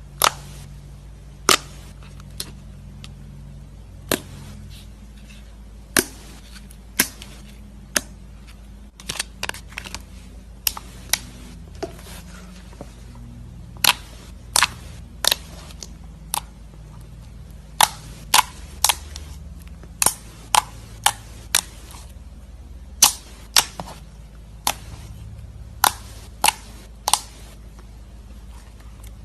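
Slime popping in short, sharp clicks at irregular intervals, coming thicker in the second half, over a low steady hum.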